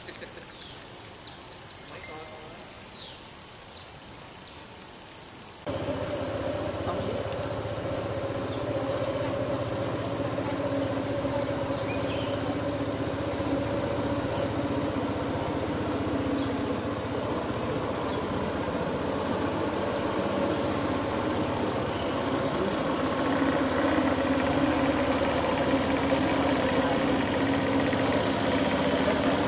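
Steady, high-pitched chorus of insects shrilling without a break. A low steady hum joins about six seconds in.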